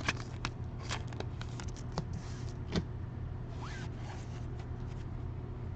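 Trading cards and foil pack wrappers being handled: a series of short scrapes, clicks and rustles over a steady low hum.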